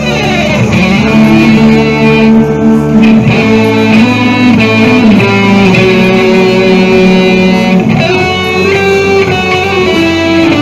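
Two electric guitars played live through amplifiers in a rock instrumental: held lead notes with pitch bends, and a quick falling slide in the first second.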